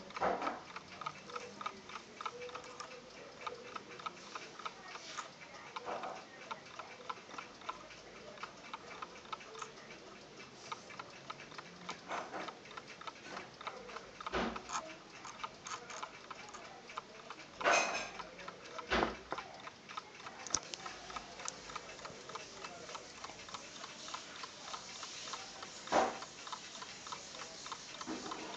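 Alarm clock ticking steadily, a fast even run of ticks, with a few louder separate clicks or knocks scattered through.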